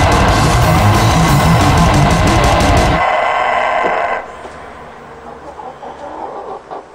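Death metal music, with distorted guitar and heavy drums, cuts off about three seconds in. A rooster's crow carries on alone for about a second after that, followed by quieter clucking from hens.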